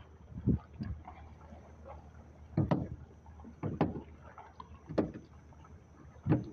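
Dull thumps and knocks on a small fishing boat, about six in irregular succession, roughly a second apart from the middle of the stretch on.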